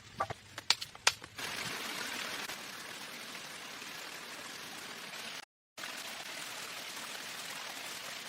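A few sharp knocks in the first second or so, then a steady rush of water noise that cuts out briefly about two-thirds of the way through.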